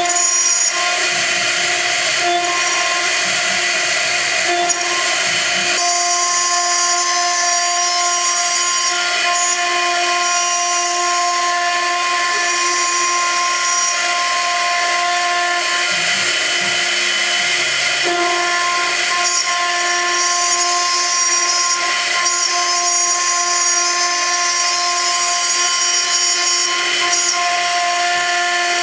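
High-frequency spindle of a MillStep CNC gantry milling machine running while the cutter mills aluminium: a steady whine with several tones over a hiss of cutting. A lower hum comes in during the first few seconds and again a little past the middle.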